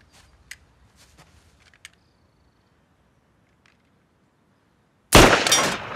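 Near silence with a few faint ticks, then one loud pistol shot about five seconds in that dies away over most of a second.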